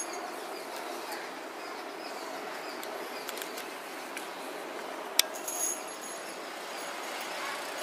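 Steady outdoor background noise with no clear cat yowl, broken by a single sharp click a little past five seconds in and a short scuffle-like noise just after.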